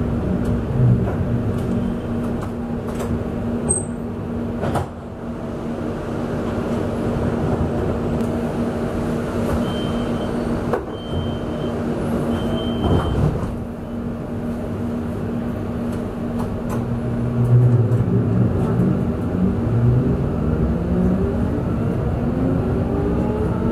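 Inside a 1988 Duewag B80D Stadtbahn car: a steady electrical hum over running noise, then three short high beeps of the door warning and a thump as the doors shut. About four seconds later the traction motors' whine rises in pitch as the car pulls away.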